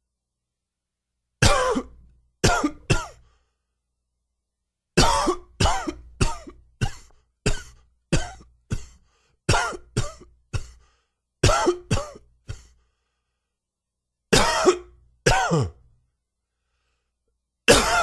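A man's dry cough, with about twenty short coughs in bouts of two to five separated by silent pauses. The uploader puts it down to allergies.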